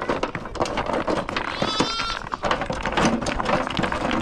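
A farm animal bleating once, a short high-pitched call about two seconds in, over a busy background of knocks and clatter.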